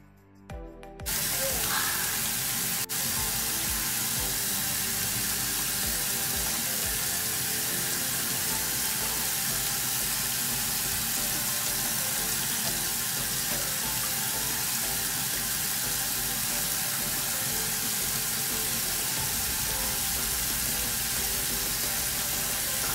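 Bathroom sink tap turned on about a second in and running steadily, then shut off abruptly, with a single click near three seconds.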